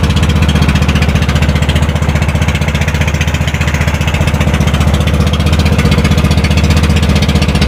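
Engine of a bangka outrigger boat running steadily, with an even, unbroken drone.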